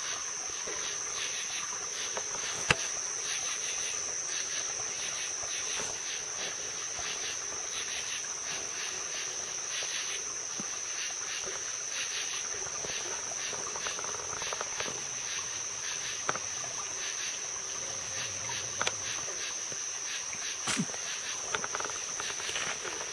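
Night insect chorus, a steady high-pitched trill, with a few faint clicks and rustles and one sharp click about three seconds in.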